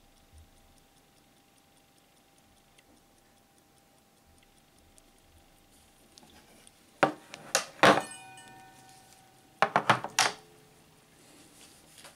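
Faint, rapid, even ticking of mechanical watch movements. About seven seconds in come a few loud knocks with a brief metallic ring as the watches are handled, and another cluster of knocks follows about three seconds later.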